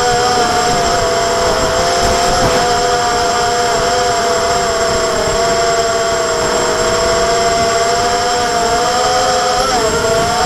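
Hexacopter's six electric motors and propellers whining steadily in flight, several tones holding nearly level with small wavers and a brief dip near the end, over a low rumbling wind noise on the onboard camera's microphone.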